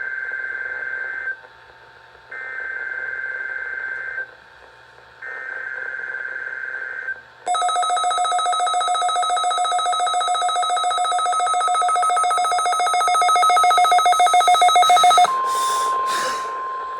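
NOAA Weather Radio SAME header on a Vector VEC438 weather radio: three harsh two-pitch digital data bursts of about two seconds each, sent for a Required Weekly Test. The receiver then goes into alert with its own shrill, fast-pulsing electronic alarm for about eight seconds. After a short crackle the 1050 Hz warning tone is heard, steady, for about three seconds.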